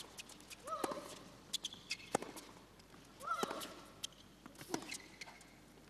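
Tennis rally: sharp racket strikes on the ball and ball bounces on the court. Twice a player lets out a short cry on the stroke, rising then falling in pitch.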